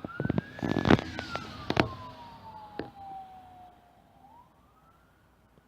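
Electronic siren on a GMC Terrain EMS response SUV wailing: it rises, falls slowly, then rises again near the end, fading away as it goes. A cluster of sharp knocks and crackles in the first two seconds is the loudest thing.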